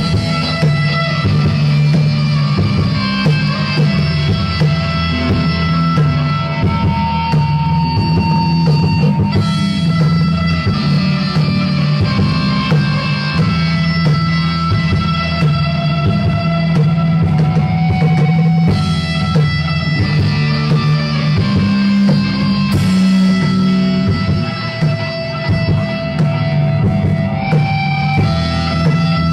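Live rock band playing an instrumental passage on electric guitars and a drum kit, loud and steady throughout, with no singing.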